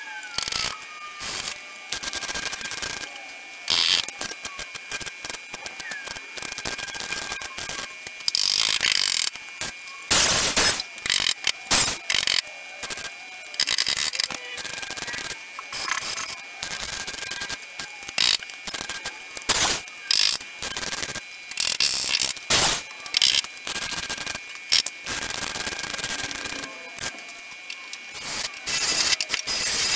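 Welder stitch- and tack-welding thin car-body sheet steel, turned down low: repeated short crackling bursts of arc that start and stop sharply, with brief pauses between.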